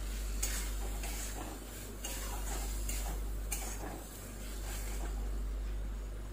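A spatula stirring and scraping thick tomato-onion masala around a metal kadai, with short scrapes and knocks against the pan every second or so over a steady low hum.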